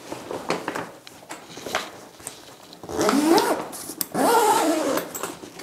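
The zipper on a racket bag's large main compartment being pulled shut, with the fabric rustling. In the second half the zip runs in two longer pulls, its buzz rising and falling in pitch as the pull speeds up and slows.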